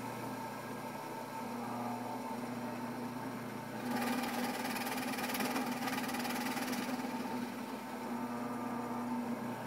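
Benchtop drill press motor running with a steady hum. From about four seconds in to about seven seconds in, the twist bit bores into the wooden board and the sound grows louder and noisier.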